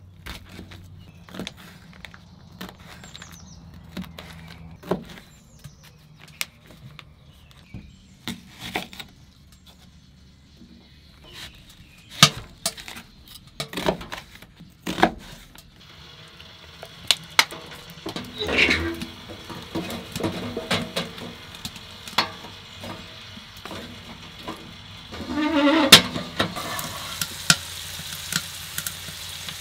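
Knife slicing a red bell pepper and an onion on newspaper over a wooden table: scattered short cuts and knocks. From about halfway, chicken frying in a cast iron skillet, a steady sizzle with a loud surge near the end.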